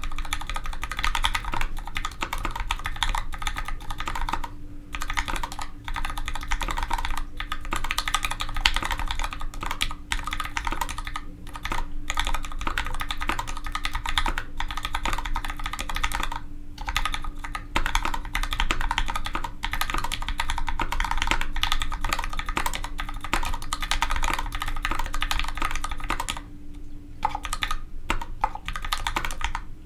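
Fast, continuous typing on a custom 65% mechanical keyboard with Gateron Ink Black linear switches and GMK doubleshot ABS keycaps, a dense run of keystroke clacks broken by a few short pauses, the longest near the end.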